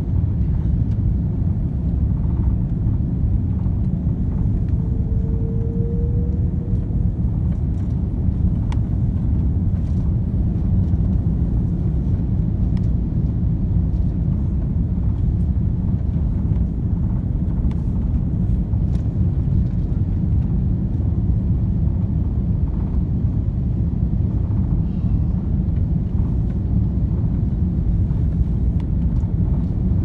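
Steady low rumble of an Airbus A330-300's engines and rushing air heard inside the cabin on final approach, flaps extended. A short faint tone rises slightly about five seconds in.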